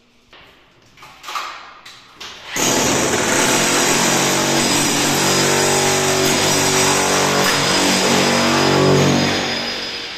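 Electric power tool running steadily at one pitch, starting abruptly a couple of seconds in after a few knocks and fading out near the end, during split air-conditioner installation work.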